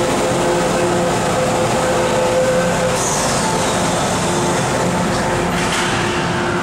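MTR M-Train metro train standing at an underground platform, its equipment giving a loud, steady hum over an even rumble. A brief high falling whine comes about three seconds in, and a short clatter near the end as the doors shut.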